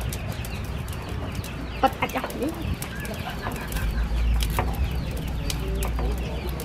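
Chickens clucking now and then over a steady low rumble, with scattered sharp clicks.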